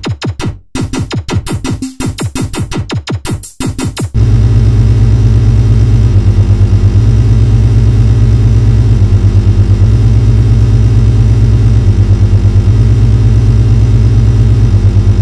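Synthesizer-heavy electronic rock music. A choppy, stop-start passage of synth and drum hits gives way about four seconds in to a loud, sustained, rapidly pulsing synthesizer bass drone that steps to a new pitch several times.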